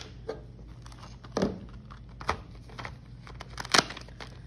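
Hands handling a clear plastic pouch of felt-tip markers: scattered crinkles and sharp clicks of markers knocking together, the loudest a little before the end.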